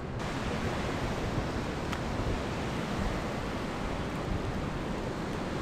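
Steady rush of wind and small waves washing on the shore, with a faint click about two seconds in.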